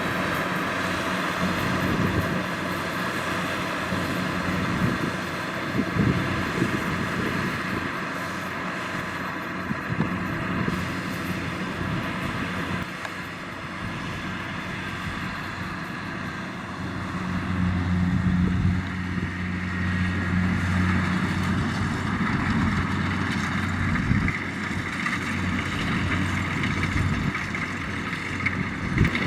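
Kubota combine harvester's diesel engine and threshing machinery running steadily while harvesting rice, with a few knocks; the engine note grows louder for a few seconds about two-thirds of the way in.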